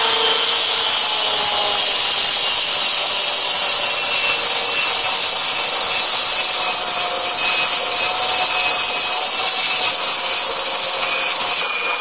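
Electric blender motor running steadily, blending margarine into flour for pastry, with a high whine that drops slightly in pitch. It cuts off suddenly at the very end.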